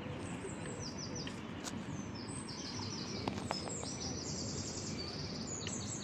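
Small birds chirping in quick high runs of repeated notes, again and again, over a steady hiss of outdoor background noise.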